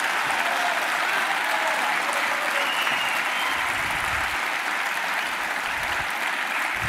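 A large seated audience applauding steadily, dense even clapping throughout.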